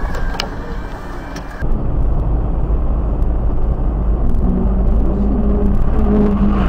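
Road and engine rumble of a vehicle driving, heard from inside the car as a dashcam records it. About a second and a half in, the sound changes abruptly to a louder, deeper rumble, and an engine hum with a steady pitch comes in over it in the second half.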